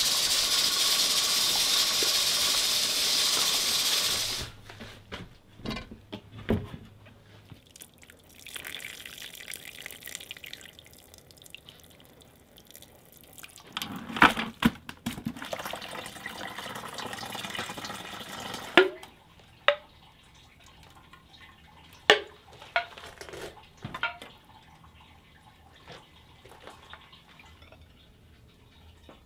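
A steady loud hiss at a steaming stockpot of chicken stock and its burner cuts off about four seconds in. After it come quieter liquid sloshing and dripping with scattered metal clinks and knocks as the cooked stock is strained from the pot.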